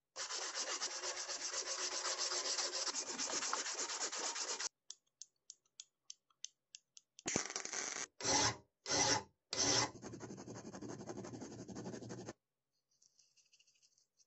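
Rapid abrasive rubbing on a steel padlock shackle for about four and a half seconds, followed by a scatter of light ticks. Then come several short, loud bursts of arc-welding crackle on the shackle and a longer, quieter steady weld run that stops about two seconds before the end.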